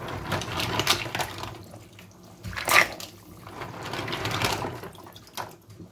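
Live mussels scooped by hand out of a plastic basin of water and dropped into a pot of boiling broth: water sloshing and splashing in three main swishes.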